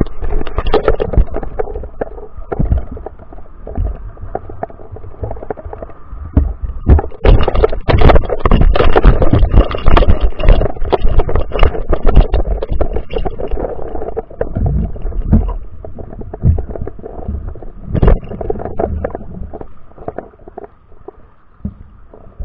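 Underwater sound heard through a GoPro's waterproof housing hanging in the sea: a low, muffled rumble of moving water with many clicks and knocks, busiest in the middle and with one sharp knock near the end.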